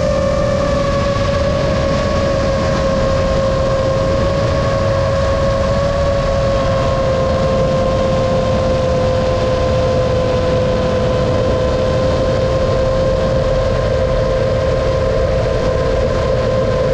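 Motors and propellers of a 7-inch FPV quadcopter running at a steady cruise: a steady whine with a few overtones that drifts slightly lower, over constant wind noise.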